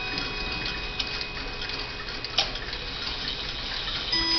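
Howard Miller 612-429 key-wind chiming mantel clock ticking while its hands are turned, with a sharp click about two and a half seconds in. Earlier chime tones ring faintly on, and a new chime note sounds near the end as the hands reach the hour.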